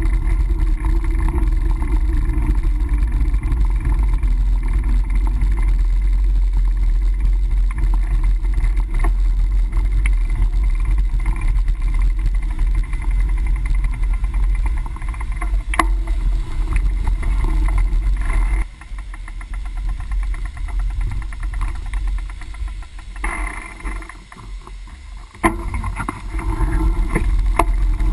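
Wind buffeting a GoPro's microphone during a mountain bike ride, a loud steady low rumble. About two-thirds of the way in it drops away for several seconds, letting a rapid, even ticking through, then comes back after a sharp click.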